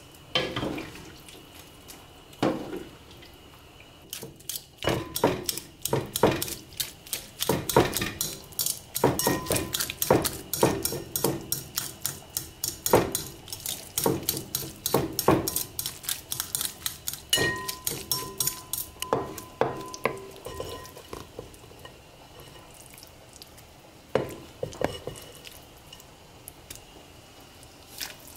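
Fork mashing soft boiled pumpkin in a glass bowl, clinking and scraping against the glass in a quick run of strokes, two or three a second. The strokes start about four seconds in and thin out after about twenty seconds, leaving a few single knocks.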